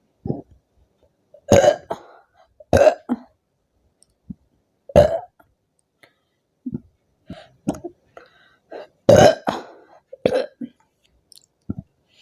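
A woman burping over and over from fizzy soda: a string of short burps, about half a dozen loud ones with smaller ones in between.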